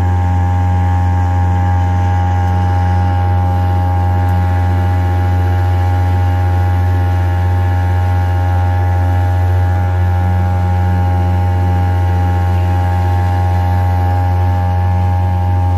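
Boat engine running at a steady speed, a loud, even drone with no change in pitch.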